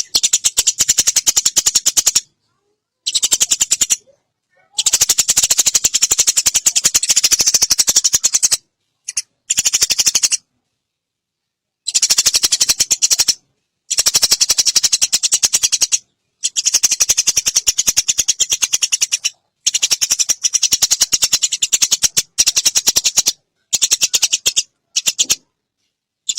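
Eurasian tree sparrow giving long, rapid chattering calls: dense runs of sharp, high chips in about a dozen bouts of one to four seconds, broken by short silences.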